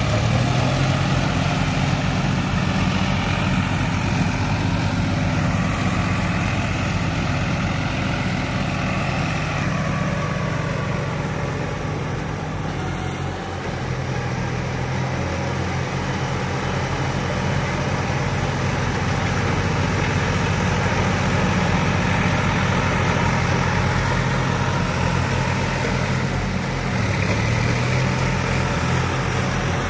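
Diesel tractor engines (Massey Ferguson, New Holland and John Deere) running under load as they pull rotary tillers through wet paddy mud, a steady engine drone whose pitch rises and falls now and then.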